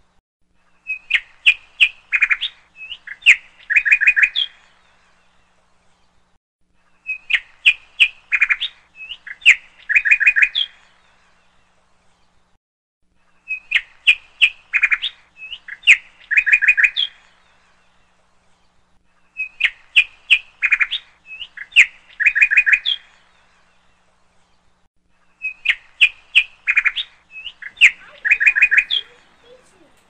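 Recorded birdsong looped as a backing track: the same phrase of quick, sharp chirps and trills, about three seconds long, repeats five times at even intervals of about six seconds.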